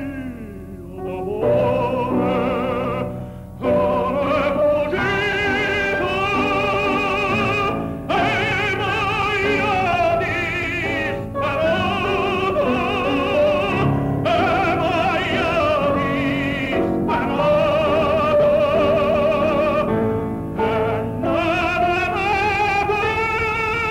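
Operatic singing with heavy vibrato over an instrumental accompaniment. The voice holds long notes and breaks off briefly between phrases several times.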